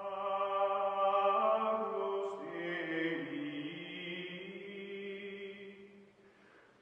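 Music of a sustained choral chant, voices holding long steady notes with a few changes of pitch, fading out near the end.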